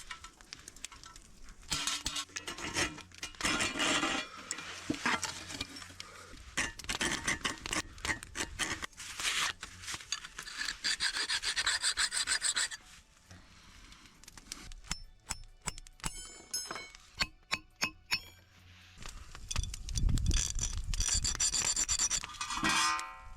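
Metalworking on a steel rod: rough rasping strokes, like a file on steel, repeat about once a second. Then comes a quick run of sharp metallic strikes that ring briefly, as of hammering steel on an anvil.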